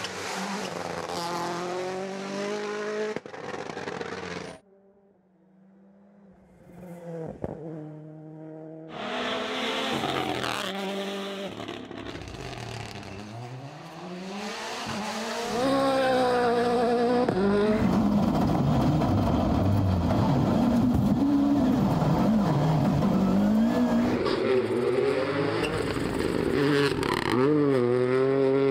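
Turbocharged four-cylinder rally cars at full attack, engines revving hard and rising and falling in pitch through gear changes, with some tyre squeal. About four seconds in the sound drops to a faint distant car for a few seconds, then picks up again. It is loudest over the last half, with engines revving at close range.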